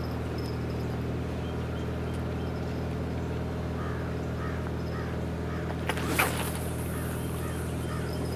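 A steady low engine drone runs throughout. About six seconds in, a fishing rod is cast: a sharp swish, then a high hiss of line running off the spinning reel for a few seconds.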